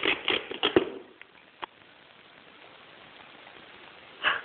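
Gaffer tape being peeled off a wrapped box: a quick crackling run of tearing and clicks in the first second, one more click a little later, then quiet until a short burst near the end.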